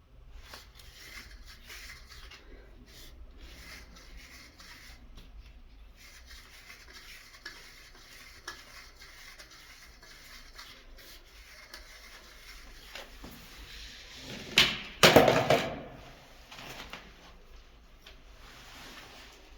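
Plumbing fittings being handled and fitted, with small hard clinks and rubbing throughout. About three-quarters of the way in there is one louder, noisy rush lasting about a second.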